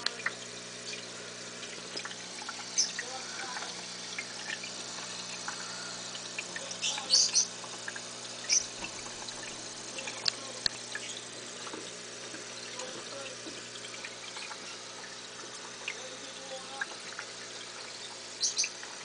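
Aquarium air bubbler: bubbles rising through a bubble column with gurgling water, over a steady low hum, with scattered small pops and clicks, a few louder ones around the middle and near the end.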